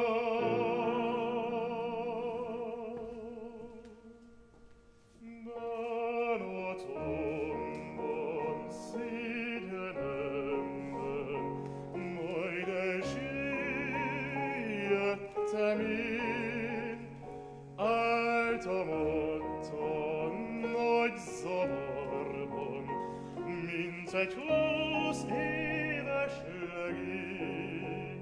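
Male classical singer with piano accompaniment, in operatic style: a long held note with vibrato dies away over the first few seconds, then after a brief near-quiet pause the piano and voice resume.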